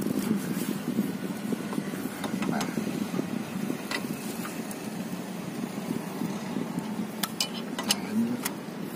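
Scattered light metallic clicks and plastic crackles as a motorbike's oil drain bolt is turned with an L-handled 17 mm socket wrench over a plastic catch bottle, with several clicks close together near the end. A steady low vehicle rumble runs underneath.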